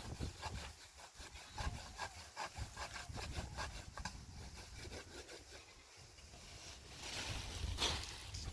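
A quick run of short rasping scrapes, several a second, then a longer, louder rustle near the end.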